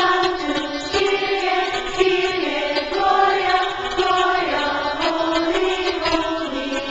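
Music with a slow, chant-like sung vocal melody in long held notes.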